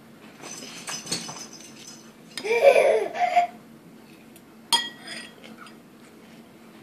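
Light clinking and rattling of plastic balls in a toddler's ball-drop toy tower, with a short high-pitched vocal sound from the toddler about two and a half seconds in and a sharp clink with a brief ring nearly five seconds in.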